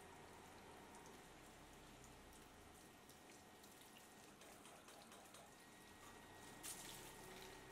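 Faint water from a hose running onto a car's polished paint, splashing and dripping off the panel, with a short louder splash about two-thirds through.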